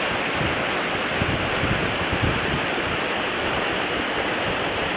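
Mountain water rushing down a waterfall: a steady, even rush of water.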